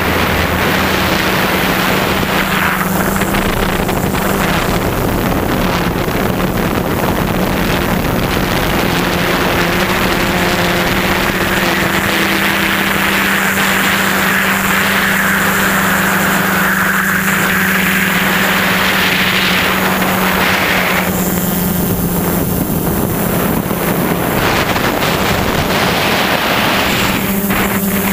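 A small camera drone's electric motors and propellers hum steadily in flight, holding one pitch, with wind rushing over the onboard microphone.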